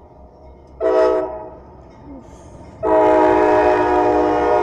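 Norfolk Southern freight locomotive's air horn: a short blast about a second in, then a long loud blast from near three seconds in, over the low rumble of the train. Together with the long blast just before, this is the closing short-and-long of the long-long-short-long grade-crossing signal.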